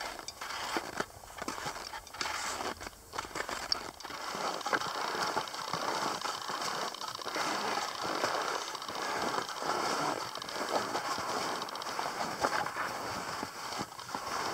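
Touring skis sliding over crusty snow, a continuous crackling hiss that comes in separate strides at first and runs on unbroken after about four seconds.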